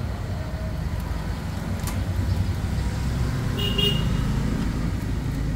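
Steady low rumble of a motor vehicle's engine, with a short high horn toot about three and a half seconds in and a few faint clicks.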